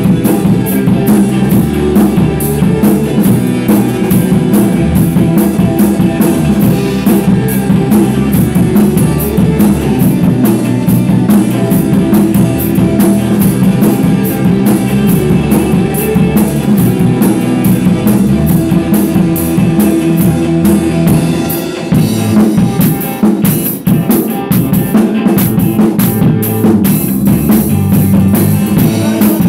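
Rock band playing live, with a drum kit and electric guitar running through a song. The level drops briefly about 22 seconds in before the full band comes back in.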